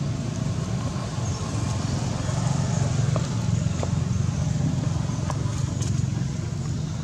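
Steady low rumble, a little louder from about halfway through, with a few faint clicks.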